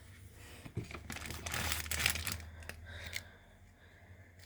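Plastic food packaging crinkling and rustling as items are handled and moved about on a fridge shelf, with a few light knocks; the rustling is loudest in the middle.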